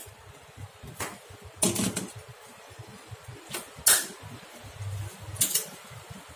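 A handful of short, irregular knocks and clicks as hands handle metal tools and a tire-sidewall vulcanizing press clamped on a car tire.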